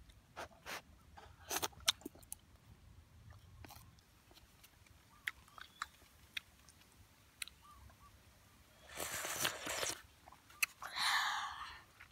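A boy eating sour soup close to the microphone: soft chewing with scattered small clicks, then two louder, longer slurps near the end.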